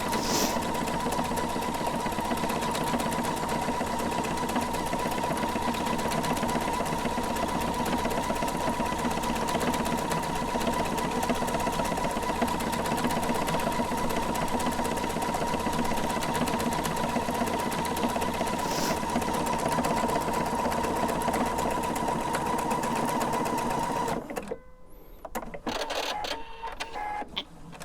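Electric sewing machine stitching a decorative stitch at reduced speed under its start-stop button, running steadily. It stops about 24 seconds in, leaving a few faint clicks.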